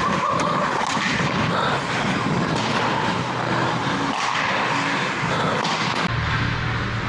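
Ice hockey skate blades scraping and carving on rink ice during play, with occasional sharp clacks. About six seconds in the sound turns duller and deeper.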